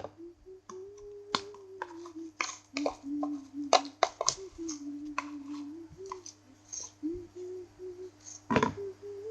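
Glitter slime being stirred and worked in a bowl, with irregular sharp clicks and smacks. Under them a person hums a soft, wandering tune.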